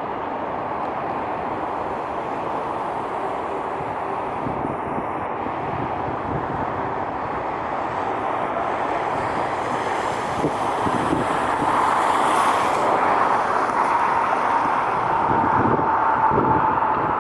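Jet airliner engines running with a steady rumble that grows louder about ten seconds in. A steady whine rises over the rumble near the end.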